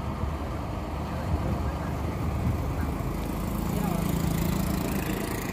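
Intercity bus's diesel engine running as the bus pulls out and drives past at close range, with a deeper engine note swelling about three and a half seconds in.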